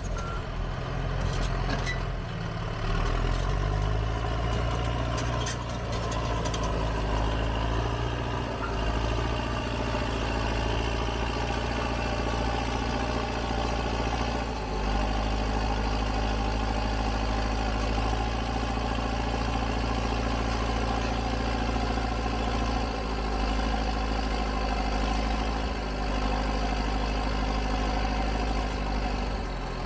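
A heavy machine's diesel engine runs steadily, its pitch shifting a little a few times. A run of sharp clicks or knocks sits over it in the first several seconds.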